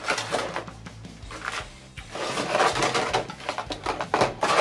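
Stiff clear plastic blister packaging crinkling and crackling as it is pulled out and handled, with a lull in the middle before a longer, busier stretch of crackling.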